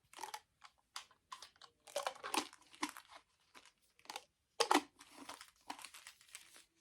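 Packaging crinkling and rustling in short, irregular bursts as items are handled and adjusted, with a couple of louder crackles about two and a half and four and a half seconds in.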